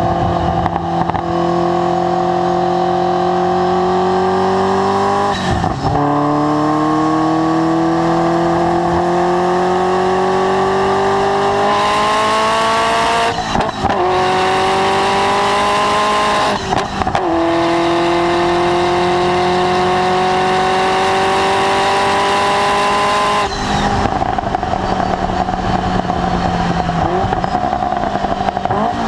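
Ferrari F40's twin-turbo V8 under full throttle, its pitch climbing steadily through the gears with quick upshifts about six, fourteen and seventeen seconds in. About twenty-four seconds in the throttle closes and the engine runs on at a lower, steadier note.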